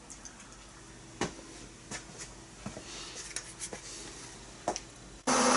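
A few light clicks and knocks of metal tools being handled on the milling machine table, over faint room tone. Just before the end it cuts suddenly to the steady motor hum and whine of the Bridgeport vertical mill running slowly in back gear.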